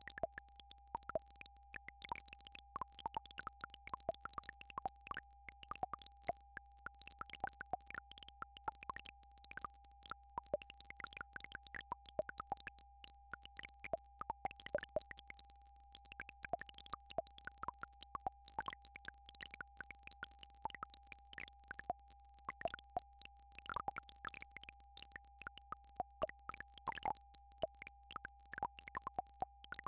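A steady synthesized tone at about 800 Hz over a low hum, with many irregular clicks scattered on top: a frequency-therapy tone track.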